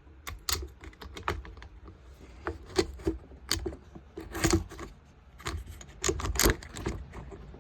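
Irregular clicks and light taps of small metal parts and a tool being handled while a leaf blower's carburetor is bolted back on, with a couple of louder knocks about halfway through and near the end.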